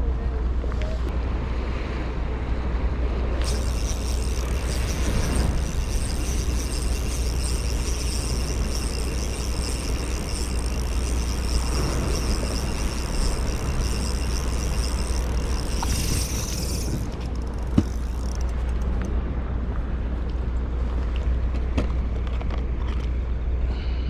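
Steady low outdoor rumble, with a high-pitched continuous whine from about three seconds in until about seventeen seconds, and a single sharp click near eighteen seconds.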